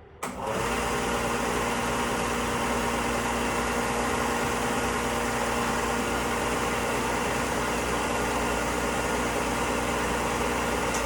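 Electric Bauer belt sander switched on and running at a steady speed, a continuous motor hum under the whir of the belt.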